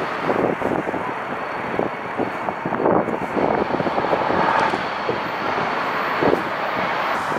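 Steady rushing outdoor background noise with a faint, thin high whine running through it.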